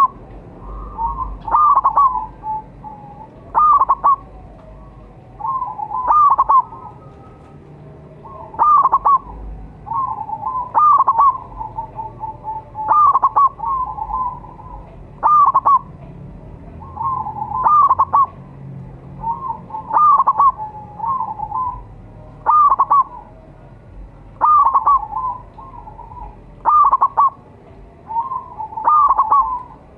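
Zebra dove (perkutut) calling: short phrases of quick, rolling cooing notes, repeated about every two seconds.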